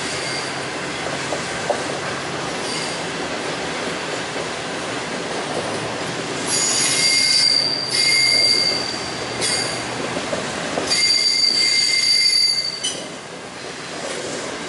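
Union Pacific intermodal train of double-stack container cars and trailer flatcars rolling past, with a steady rumble of wheels on rail. Loud, high-pitched wheel squeal comes and goes in several stretches through the middle and eases off near the end.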